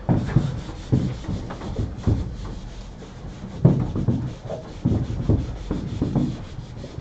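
Blackboard eraser rubbing across a chalkboard in a series of irregular back-and-forth wiping strokes, loudest about two thirds of the way through.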